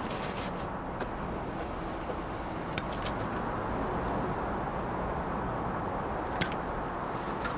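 Steady outdoor urban background rumble, with a few sharp clicks: two close together about three seconds in and one more near the end, as a cigarette lighter is worked to light a cigarette.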